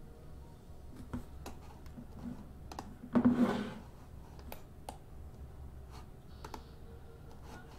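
Scattered light clicks and taps, irregularly spaced, with one short, louder noisy sound about three seconds in.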